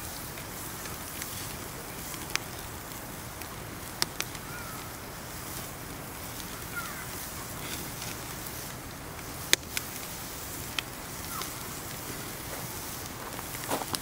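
Wood campfire crackling steadily, with a few sharp pops from the burning logs, the loudest about two-thirds of the way through.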